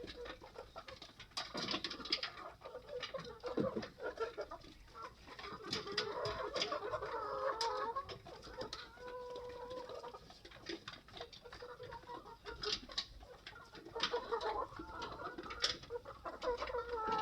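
A flock of chickens clucking, many birds calling over one another, with scattered sharp clicks.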